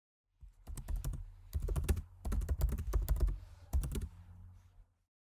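Computer keyboard typing: an irregular run of quick key clicks that starts about half a second in and stops near the end, with a low hum underneath.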